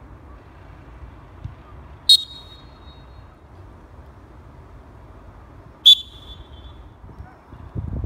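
Two short blasts from two different plastic referee whistles, one about two seconds in and one near six seconds, each a brief high tone lasting a fraction of a second. The second blast trails off a little longer than the first.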